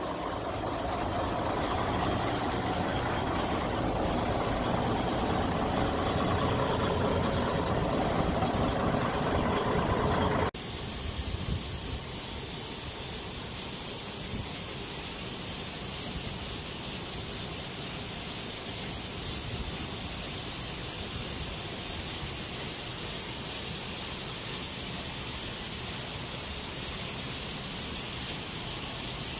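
A DAF XF lorry's diesel engine idling steadily. About ten seconds in, this cuts off abruptly to a steady hissing rush of grain pouring from a silo's loading spout onto the heap below.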